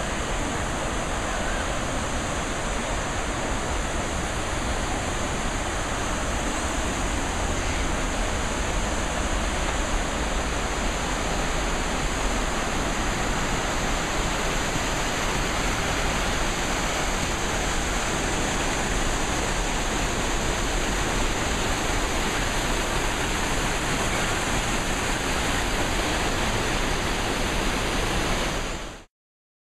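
Rushing mountain river with white water over rocks: a steady, loud rush of water that cuts off abruptly near the end.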